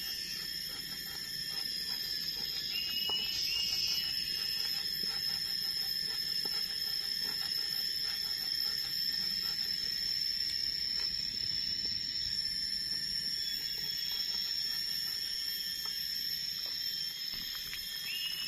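Forest insects droning steadily in several high pitches, with a few short repeated chirps about three seconds in. Faint scrapes and taps of a pestle grinding in a clay mortar underneath.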